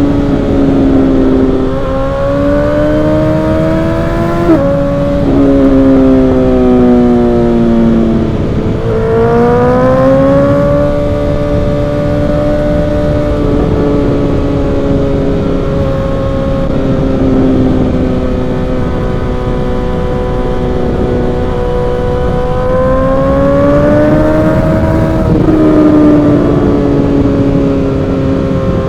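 Suzuki GSX-R1000 inline-four with an M4 aftermarket exhaust, ridden at speed. The engine note climbs and falls repeatedly, and drops quickly about four and a half and twenty-five seconds in as gears are changed. A steady wind rush runs underneath.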